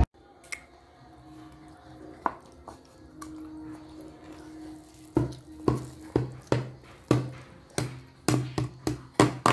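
A run of dull knocks, about two a second and slightly uneven, each with a short low ring, starting about five seconds in after a quiet stretch.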